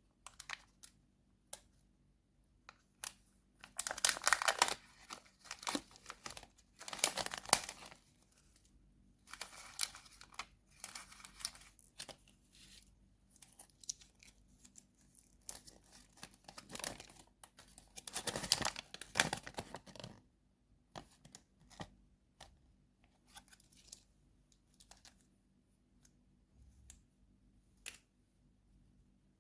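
Candy packaging being torn open and crinkled by hand: irregular rustling and tearing bursts, loudest about four, seven and nineteen seconds in, thinning to scattered small clicks and crackles near the end.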